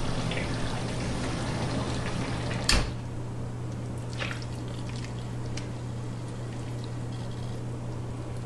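A serving spoon scoops moist jambalaya from a pot onto a plate, with soft wet squishing and scattered light clicks of the spoon. About three seconds in there is a single sharp knock, the loudest sound, and a steady low hum runs underneath.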